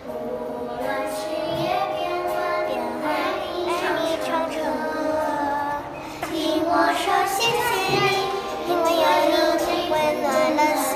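Children singing a song in Mandarin over a music backing, a little louder from about six seconds in.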